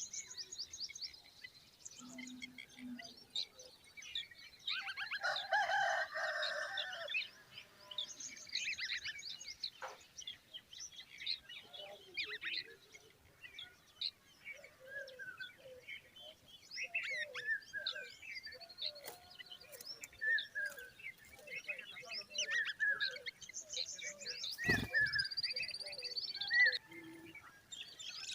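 Common babblers calling: a busy run of chirps and short whistled notes, with a loud harsh chattering burst about five seconds in. A single sharp knock comes near the end.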